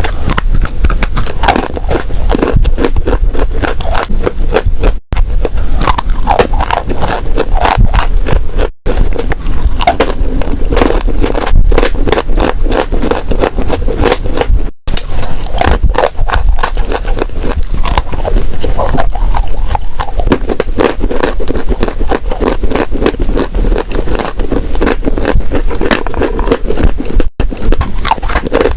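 Dry clay crunching and crumbling in loud, close-miked ASMR, a dense run of sharp crackles and scrapes broken by a few abrupt cuts between clips.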